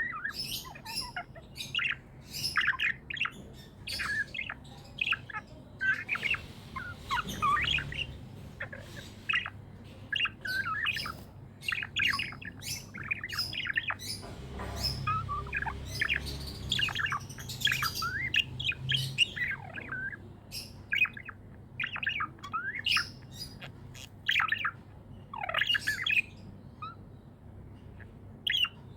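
Budgerigars chirping and warbling continuously in quick, busy bursts of short high calls with occasional squawks. A faint low rumble sits underneath about halfway through.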